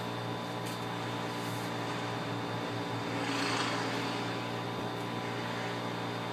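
Steady background hum with a short rush of hissing noise about three and a half seconds in.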